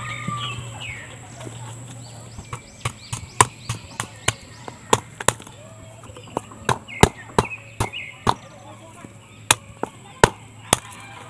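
Machete chopping dry coconut shells on the ground: a string of sharp, irregular chops, about two a second, starting a couple of seconds in.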